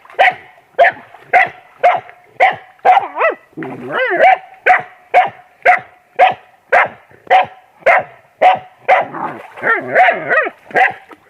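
A dog barking rapidly and steadily, about two barks a second, with wavering rising-and-falling calls mixed in twice.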